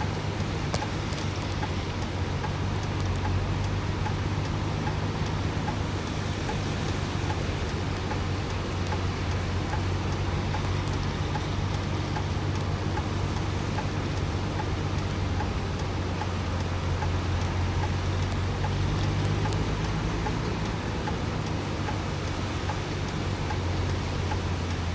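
A vehicle engine running with a steady low hum, over a constant hiss of water.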